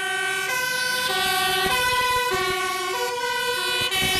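Electronic fire-truck siren sound, a two-tone hi-lo wail that alternates between a low and a high pitch about every half second.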